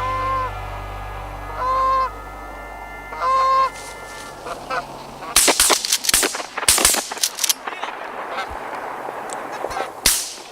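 Geese honking: a few separate honks in the first four seconds, then a dense clamour of many geese calling from about five seconds in. Several sharp, loud cracks stand out around six to seven seconds and again near ten seconds.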